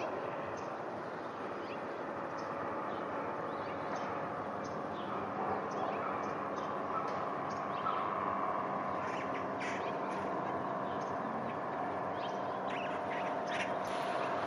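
Small birds chirping in short, scattered calls over a steady droning hum that holds several tones, one of which rises slightly and eases off about halfway through.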